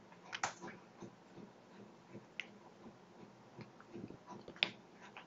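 Faint, scattered computer mouse and keyboard clicks, with a few sharper ones about half a second in and near the end.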